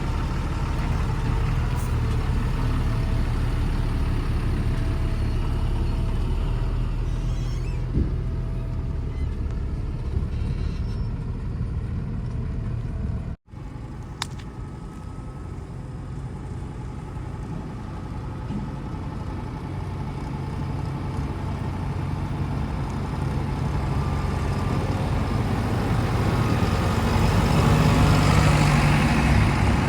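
Heavy diesel engine of a backhoe or tractor running steadily. It cuts out for an instant about 13 seconds in, then grows louder toward the end.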